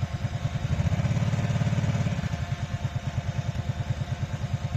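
A vehicle engine idling with an even pulsing beat, swelling louder for about a second near the middle before settling back.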